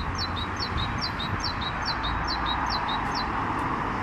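Great tit singing its repeated two-note song, a higher note then a lower one, about two to three phrases a second, stopping near the end.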